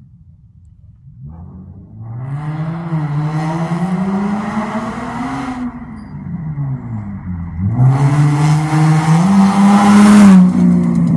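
Infiniti G37's 3.7-litre V6, fitted with short-tube headers, test pipes and a single-exit straight pipe, driving past under hard throttle. The engine note climbs, sags, then comes back on hard about eight seconds in and rises to its loudest as the car goes by near the end.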